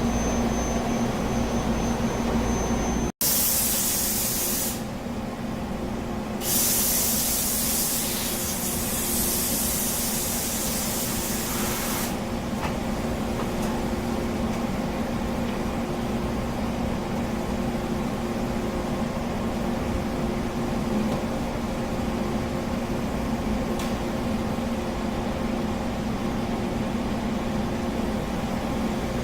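Olympia CNC boring mill running with a steady mechanical hum. About three seconds in, the sound cuts out for an instant, and then loud hissing spray comes in two stretches over the next nine seconds or so before the steady running carries on alone.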